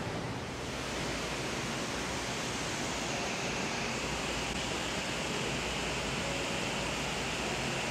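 Steady rush of water from an indoor rock water feature, over a low hum.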